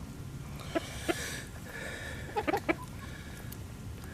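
Chickens clucking in short, separate calls as they scramble over thrown pieces of ham, with a couple of calls about a second in and a quick run of three past the middle.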